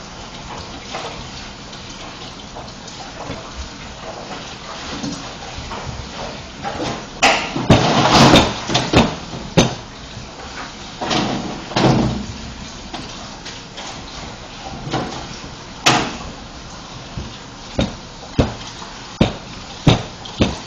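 Wooden rolling pin working a sheet of fondant on a worktop: rubbing and rustling strokes, loudest around eight seconds in and again around eleven to twelve, with sharp knocks and clacks scattered through, several close together near the end.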